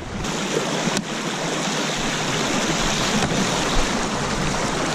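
Shallow creek water rushing steadily over a rocky riffle close by, with a couple of faint ticks.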